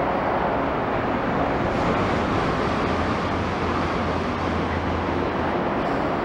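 Steady outdoor rumble of engines, with a low engine drone that swells from about a second and a half in and fades near the end.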